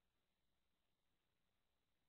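Near silence: only a very faint, steady electronic hiss, with no engine, road or traffic sound heard.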